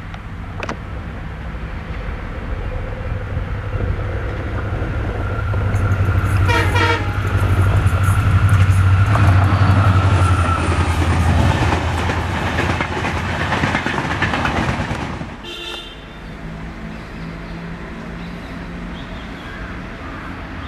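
A WDG4 (EMD GT46MAC) diesel-electric locomotive, with its turbocharged two-stroke engine, approaching and passing at speed with a passenger train. The low engine drone builds to its loudest just after a brief horn blast about six seconds in, then the coaches roll past with wheel and rail noise. Near the end a quieter, steady hum of an approaching WAP7 electric locomotive takes over.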